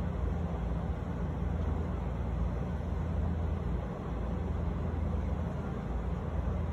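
Steady low rumble of distant city traffic, with no separate firework bangs standing out.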